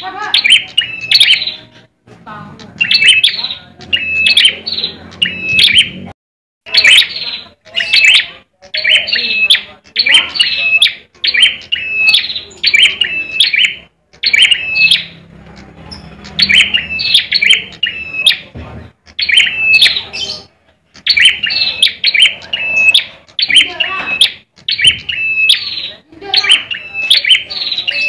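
Caged ciblek merah (red-headed prenjak) giving its agitated fighting ('tarung') call: short runs of sharp, quick chirps repeated about once a second, with brief pauses between some runs.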